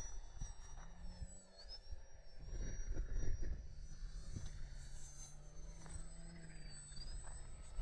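Electric motor and propeller of a small F4U Corsair RC model plane whining in flight, the thin high pitch rising and falling several times as it passes and changes throttle. Wind rumbles on the microphone.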